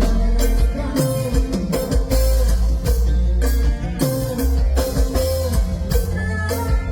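Live band music: a heavy bass line and drums with regular cymbal hits, with electric guitar.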